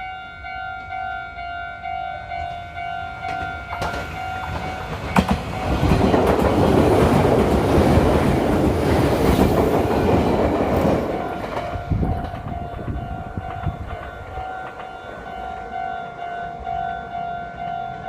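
A Meitetsu electric train passing over a level crossing, its wheels clattering on the rails for about six seconds from around five seconds in. The crossing's warning bell rings steadily before and after the pass and is drowned out while the train goes by.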